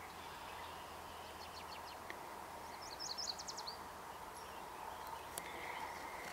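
Steady background noise with a songbird singing a short, quick run of high notes about three seconds in, after fainter high notes shortly before.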